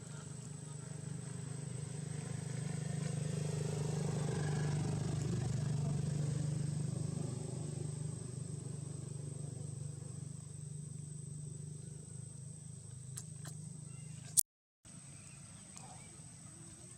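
A motor vehicle's engine drone that swells to its loudest about five or six seconds in, then slowly fades, as if driving past. Near the end there is a sharp click and a brief dropout.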